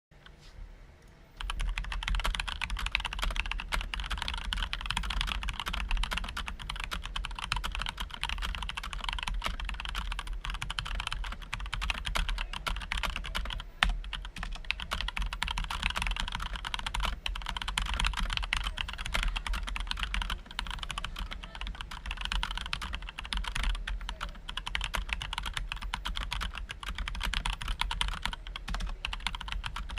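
Mechanical keyboard with tactile Gateron Brown switches and ABS stock keycaps being typed on steadily and quickly, starting about a second and a half in; the spacebar's stabilizer is lubed.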